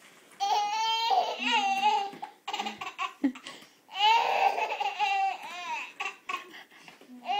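A toddler laughing and squealing in high-pitched, pulsing bouts. The two longest bouts start about half a second in and about four seconds in.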